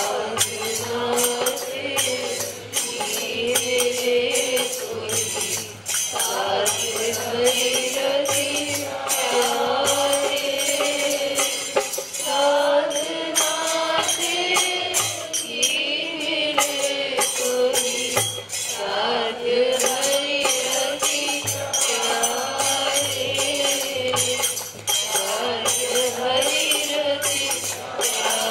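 Hindu devotional kirtan: voices singing a slow, repeating melody over a steady beat of jingling hand percussion.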